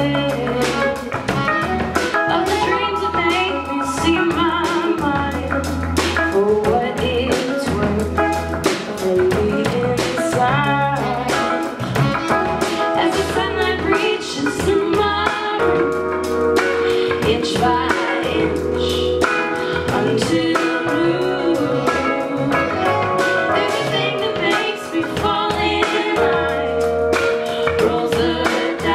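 A live band playing a song: electric guitars, bass and a drum kit keeping a steady beat, with keyboard, and a woman singing lead.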